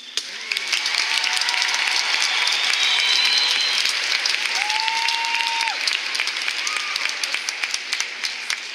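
Audience in arena stands applauding and cheering as a marching band's show ends, with a few held cheers or whistles over dense clapping. It breaks out suddenly and slowly tapers off.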